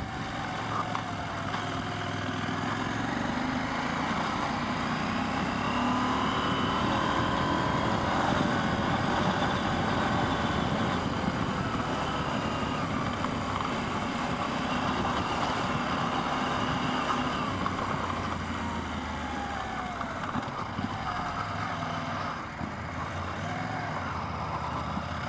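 KTM 790 Adventure R's parallel-twin engine running while under way, its pitch slowly rising and falling with the throttle.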